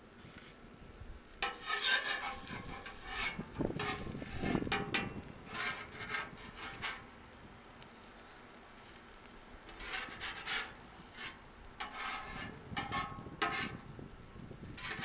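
Metal spatula and turner scraping and tapping on a Cuisinart 360 griddle's flat cooking surface as omelets are lifted and folded. There are two spells of scraping with a quieter pause in the middle.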